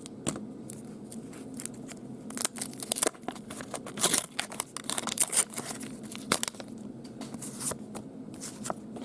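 Baseball cards and their wax-paper pack wrapping being handled: irregular rustling, scraping and tearing of paper and card stock, in quick strokes that come in clusters and are busiest in the middle.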